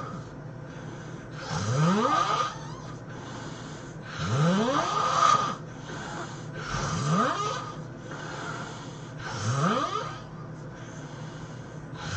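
A person snoring, four snores about two and a half seconds apart, each rising in pitch as it goes.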